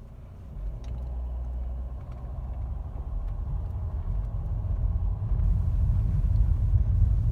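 Mercedes-Benz W212 E-Class pulling away: a low rumble of engine and road noise that grows steadily louder as the car picks up speed.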